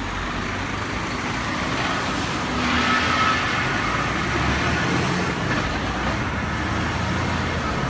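A multi-axle diesel tipper lorry's engine running as the lorry pulls away and drives off. A car passes close by as it starts.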